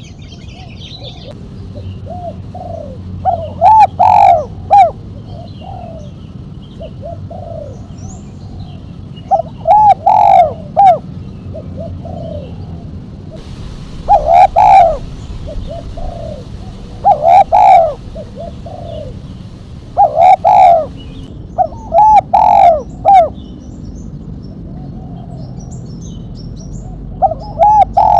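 Spotted dove cooing: loud, sharp coo phrases repeated every three to six seconds, with softer single coos in between.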